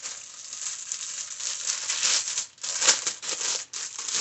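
Clear plastic packaging crinkling and rustling as a bagged pack of face masks is handled and opened by hand, with the loudest rustle about three seconds in.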